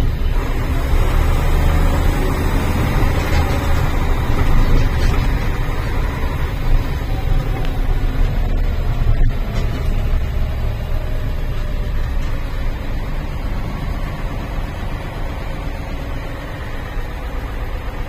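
Saurer 10DM 6x6 army truck's diesel engine running steadily under way, heard from inside the cab, with a brief click or knock about nine seconds in.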